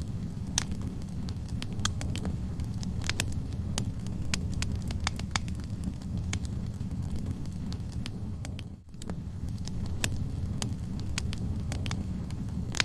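Wood fire burning in a fireplace: a steady low rumble of flames with irregular sharp crackles and pops from the burning logs. The sound briefly dips about nine seconds in.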